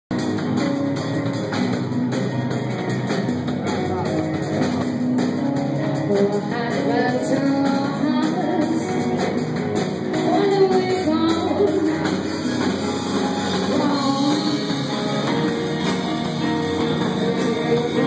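Live rock band playing: electric guitars and drum kit, with a woman singing into a microphone over them.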